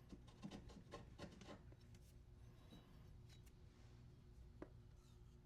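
Near silence with a few faint clicks and light rubbing of parts being handled, most of them in the first second and a half and one more near the end.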